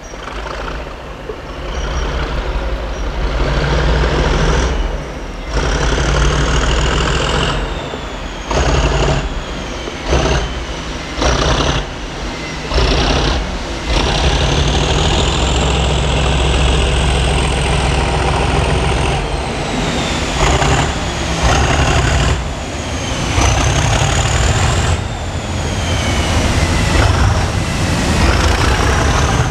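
Class 37 diesel locomotive 37716 working hard inside a tunnel, its wheels slipping on greasy rails. The power repeatedly drops off and surges back, and a turbocharger whine rises and falls again and again over the heavy engine sound.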